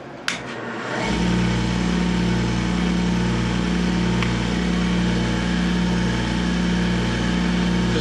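Wood lathe switched on with a click, its motor spinning up over about a second and then running steadily with a low hum. It turns the pen blank while the freshly applied sand sealer dries.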